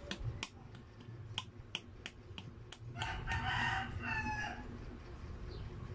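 A rooster crowing once, about three seconds in: one call of about a second and a half that drops in pitch at the end. Before it come a few sharp clicks.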